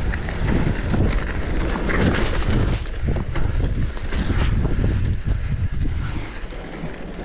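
Wind buffeting the microphone of a mountain bike descending a dirt singletrack, over the steady rumble of knobby tyres on the trail and frequent rattles and knocks from the bike over bumps.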